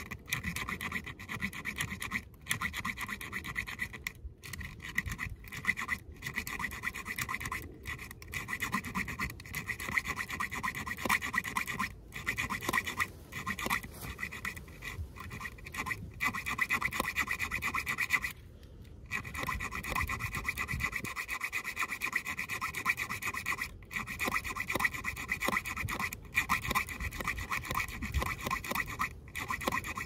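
Leatherman Surge multitool's metal-cutting saw blade sawing back and forth through a large, wet, rusty iron nail: a steady rasp broken by short pauses, the longest about eighteen seconds in. The blade is cutting slowly, with effort.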